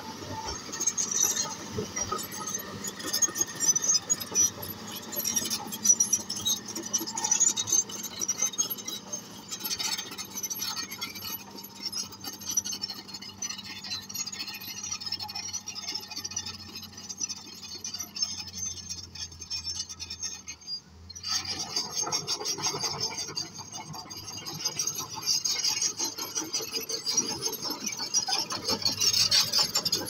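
Komatsu D155A crawler bulldozer working, its steel tracks clattering, clinking and squealing over a steady diesel engine hum. About two-thirds of the way through the sound breaks off for a moment and resumes with louder track clatter.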